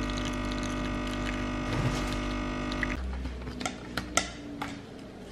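A capsule espresso machine's pump runs with a steady hum while the shot pours into a glass, and cuts off abruptly about three seconds in. Then come a few light, sharp clicks and taps from a knife spreading cream cheese on bread.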